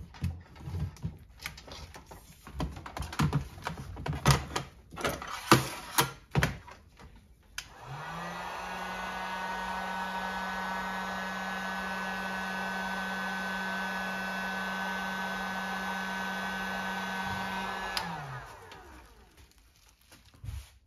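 Clicks and knocks of tubing and tools being handled for several seconds, then an electric heat gun switches on, runs steadily for about ten seconds with a fan hum and rushing air, and winds down. It is heating the end of 1/4-inch drip irrigation tubing to soften it so it will push onto a barbed fitting.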